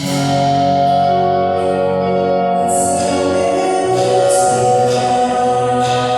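Music playing: sustained, layered chords with changing notes and no pause, possibly with a voice singing along.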